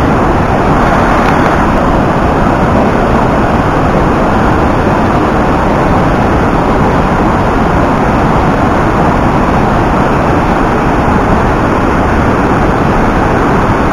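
The Rhine Falls, a huge volume of water pouring over the rocks, heard close up as a loud, steady rushing noise with a deep low rumble.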